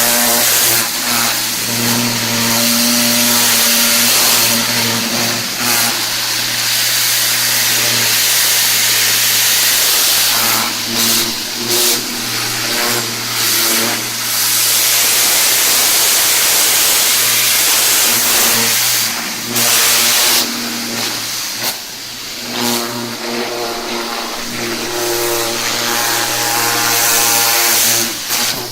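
Engine-driven high-pressure washer running steadily, with the loud hiss of its water jet, which drops away briefly several times.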